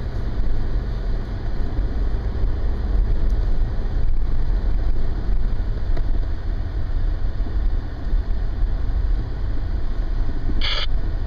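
Steady low rumble of a truck's engine and road noise heard from inside the moving cab, with a short high-pitched burst near the end.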